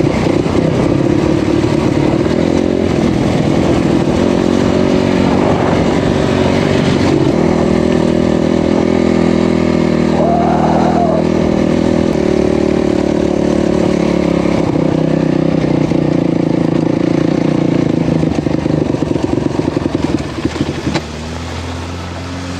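Off-road vehicle engine running under way, steady and loud, its pitch rising and falling with the throttle; it eases off near the end.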